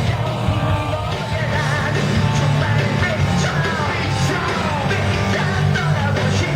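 Live rock band playing loudly, with a shouted, sung vocal over the band.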